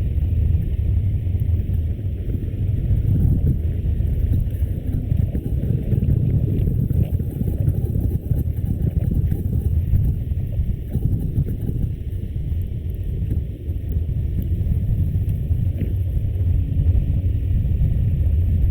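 Steady low rumble of wind buffeting the camera microphone and road noise from a moving bicycle.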